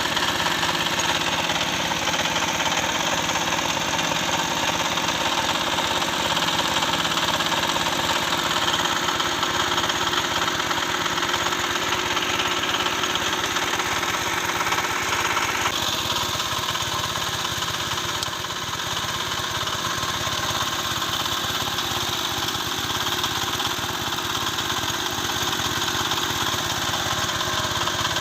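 Small engine of a DIY water-well drilling machine running steadily, its tone shifting slightly a little past halfway.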